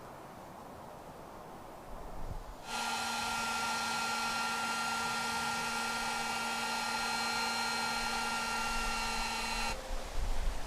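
Electric heat gun switched on about three seconds in, running steadily with a motor whine and a hiss of blown air for about seven seconds, then switched off. It is heating solder-seal crimp connectors on trailer brake wires.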